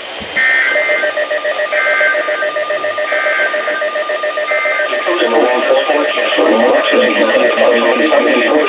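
Emergency Alert System alert tones: four short warbling data bursts about a second apart, over steady electronic alert tones that hold throughout.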